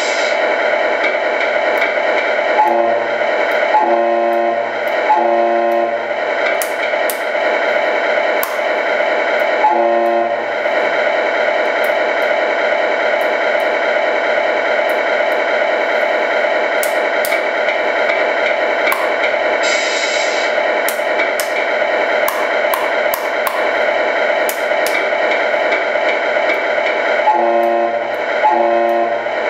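Tamiya MFC-01 sound unit in a 1/14 Mercedes-Benz Actros playing its simulated diesel engine idle through the model's small speaker, with short truck air-horn blasts: three between about three and six seconds in, one about ten seconds in, and three near the end. A brief hiss at the start and another about twenty seconds in.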